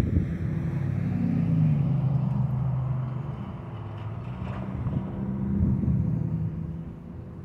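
Pickup trucks and cars driving past on the road, with engine and tyre noise. One pass swells about a second and a half in and another just before six seconds, and the sound fades near the end.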